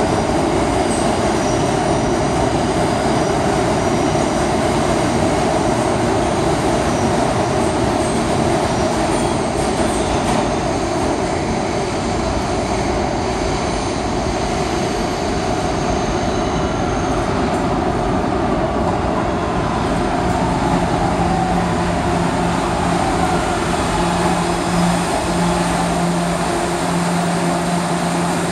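New York subway R211A train running into an underground station: steady rail and wheel noise throughout, a falling whine as it slows about two-thirds of the way through, and a steady low hum in the last several seconds as it comes in alongside the platform.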